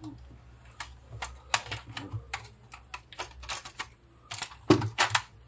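Hard plastic parts of a Takara Tomy G1 Victory Leo transforming robot toy clicking and clacking as hands turn it and move its limbs. The clicks are sharp and irregular, with a cluster of louder ones near the end.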